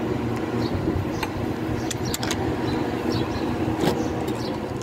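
Mini excavator's diesel engine idling steadily, with a few light metallic clinks from a wrench working the hydraulic hose fittings on a breaker.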